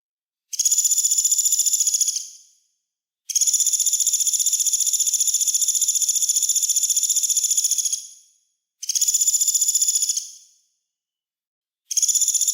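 A small songbird's very fast, high trill held at one pitch, in four bursts: a short one about half a second in, a long one of about five seconds, another short one, and one starting near the end. This is the rapid 'tembakan' trill used as master song for training captive birds.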